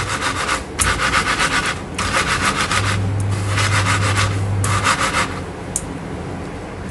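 Sago pearls (sabudana) rubbed hard inside a cotton cloth on a wooden chopping board: a fast, rhythmic scrubbing in three stretches with short breaks, stopping about five seconds in. The rubbing scours dust and surface starch off the pearls.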